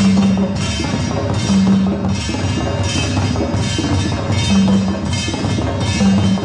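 Music with a steady percussion beat, wood-block-like knocks and a recurring low note.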